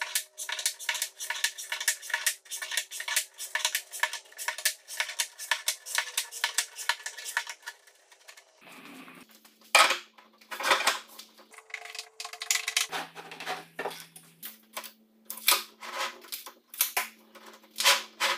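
Wooden end-grain strips for an oak and walnut brick-pattern cutting board clacking against each other and the bench as they are shuffled into place: a rapid run of light clicks for the first several seconds, then sparser, louder knocks.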